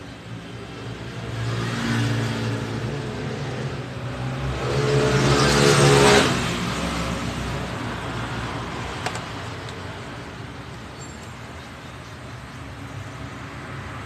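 A motor vehicle's engine passing by, growing louder and rising in pitch to its loudest about six seconds in, then dropping away and fading.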